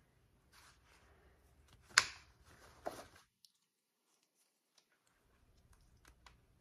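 Faint handling noise: a few small clicks and rustles, with one sharp click about two seconds in and another just under a second later. The sound then cuts out to dead silence for about two seconds before faint ticks return.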